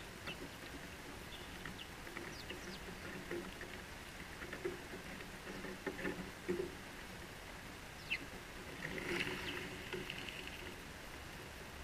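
House sparrows giving short chirps now and then, with a cluster of chirping near the end, and a few soft knocks in the middle. A steady low hum lies underneath.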